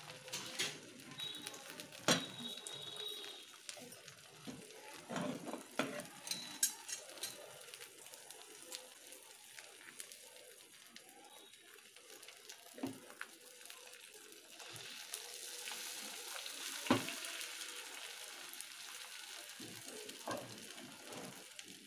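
Eggs frying and sizzling in hot oil in a pan while being stirred and broken up, with a metal utensil knocking and clinking against the pan. The sizzle grows louder about two-thirds of the way through.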